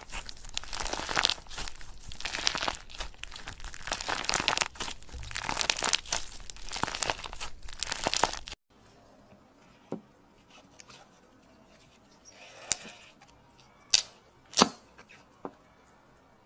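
Slime being squeezed and worked by hand, with a dense crackling and crinkling. It cuts off suddenly about eight and a half seconds in, then a few faint separate clicks follow.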